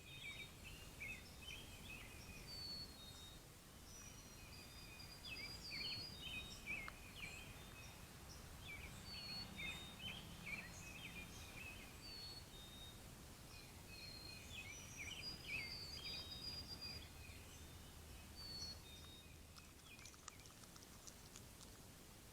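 Faint small birds chirping and calling: many short chirps and brief high whistles, overlapping at times, that thin out near the end.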